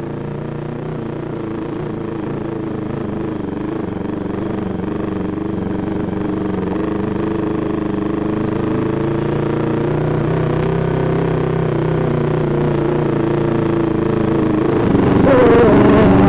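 Yamaha MT-25's 250 cc parallel-twin engine running steadily under a rider at moderate speed, with tyres rolling over gravel. The engine slowly grows louder, then opens up near the end, its pitch rising as the bike accelerates.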